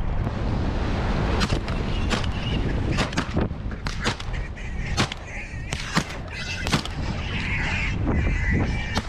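Wind buffeting the microphone and the rumble of a vehicle driving across rough ground, with a series of sharp knocks and clatters as the roof-mounted camera is jolted and knocked about.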